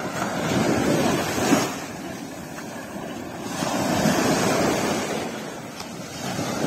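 Small waves breaking and washing up a sandy beach, the surf swelling and falling back twice, with a third wash building near the end.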